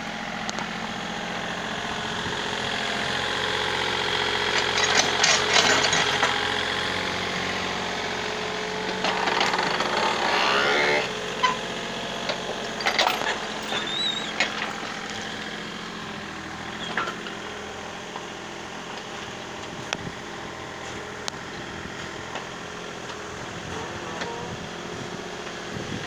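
Excavator engine running steadily while its bucket digs and scrapes through soil and roots, with loud bursts of scraping about five seconds in and again about ten seconds in, then a few sharp knocks.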